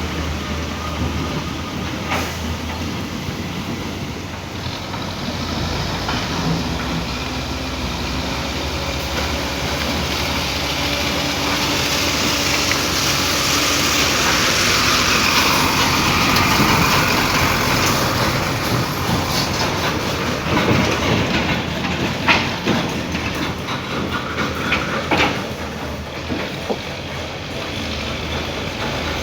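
Heavy road vehicle noise: a steady rumble that swells and eases again around the middle, with a few sharp knocks near the end.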